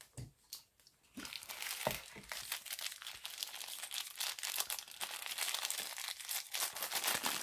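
Paper wrapping crinkling and rustling as it is unfolded by hand. It is a dense, continuous crackle from about a second in, with a couple of light knocks just before.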